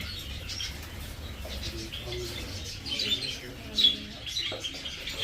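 Small birds chirping in short high calls, loudest around three to four seconds in.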